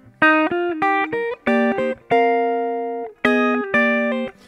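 Clean electric guitar playing a short phrase of plucked chords and single notes, moving between C minor 7 and C minor 9 voicings. Quick notes come first, then a chord held for about a second from around two seconds in, then a few more chords.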